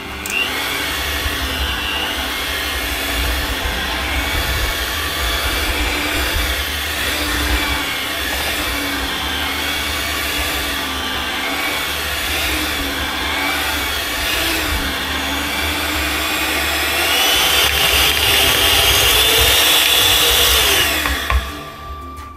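Electric hand mixer with dough hooks kneading bread dough: a steady motor whine that wavers in pitch as the hooks work through the dough. It rises in pitch and gets louder near the end, then cuts off suddenly.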